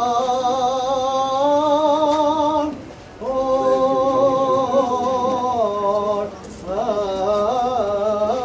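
Armenian church hymn sung a cappella: long held notes with vibrato, in three phrases broken by short pauses about three and six seconds in.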